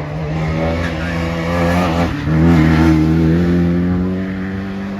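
VW Polo hillclimb race car accelerating hard, its engine note rising in pitch. About two seconds in there is a brief dip for an upshift, then it pulls again, loudest just after the shift, before the note levels off and eases near the end.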